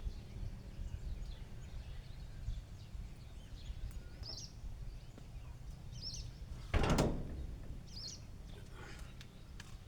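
Outdoor ambience: a steady low rumble with a bird chirping briefly several times, and one short louder noise about seven seconds in.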